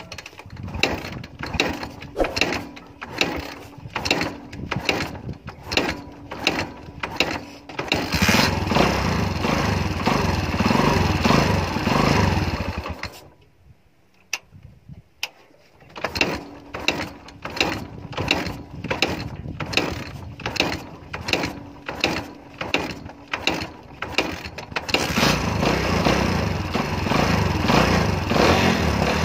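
Kawasaki Barako 175 single-cylinder motorcycle engine kick-started over and over, turning over without catching for several seconds before it starts and runs, then switched off abruptly. After about two seconds of quiet it again takes many kicks before it catches and runs. This is a hard-starting engine that needs many kicks to fire.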